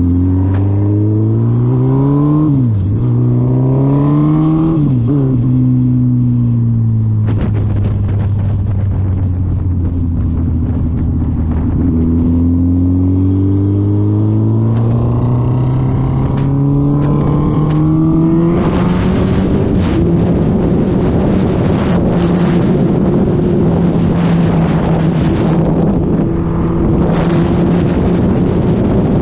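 2020 Suzuki Hayabusa's inline-four engine accelerating through the gears. Its pitch climbs and drops at two quick upshifts in the first five seconds, holds steady, then climbs again. From about two-thirds of the way through, loud wind rush over the microphone at highway speed covers the engine, which keeps running at a steady pitch underneath.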